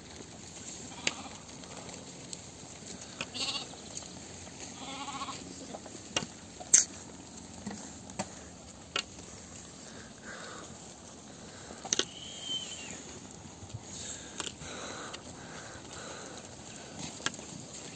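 Sheep in a flock bleating faintly now and then, several short calls spread through the time, with a few sharp clicks in between.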